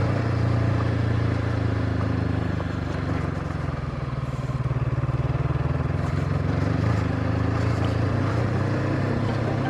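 Honda CB500X's parallel-twin engine running under load in second gear on an uphill climb, easing off briefly about halfway through and then pulling again.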